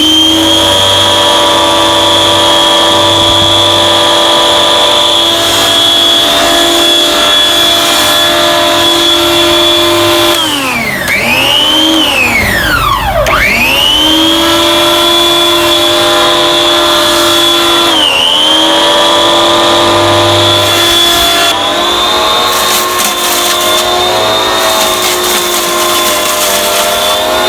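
Garden Groom Midi corded electric hedge trimmer running, its motor and enclosed double-sided blade drawing air with a steady high whine that sounds almost like a vacuum cleaner. About ten seconds in it winds down and starts up again twice, dips briefly a few seconds later, and near the end crackly ticks sit over the whine.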